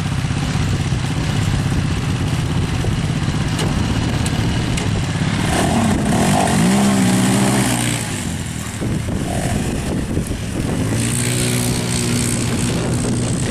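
Two quad bike (ATV) engines running, idling at first, then revving up with a rising pitch about halfway through as the quads set off. Near the end the engines hold a steadier, higher note while riding.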